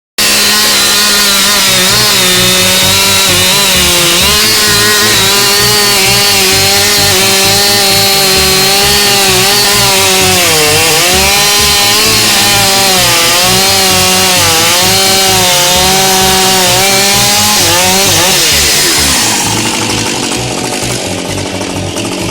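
Husqvarna 545 two-stroke chainsaw running at high revs while cutting wood, its engine pitch dipping and recovering as the chain bites. Near the end the revs fall away and it runs on more quietly.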